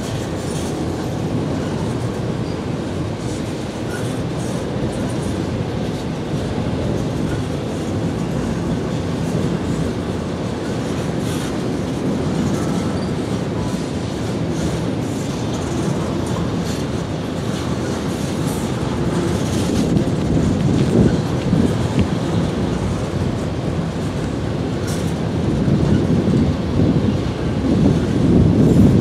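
Norfolk Southern freight train's cars rolling past at a grade crossing, a steady rumble and clatter of steel wheels on the rails that grows louder near the end.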